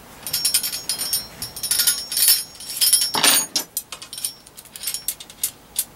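Small metal parts clinking and rattling as a metal antenna bracket and its screws and hardware are handled, many short sharp clicks with a heavier scraping knock about three seconds in and a quick run of ticks near the end.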